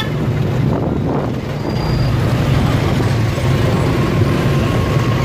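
Steady road traffic heard from a moving motorbike: engines running with a continuous low hum and road noise, trucks and motorbikes close by.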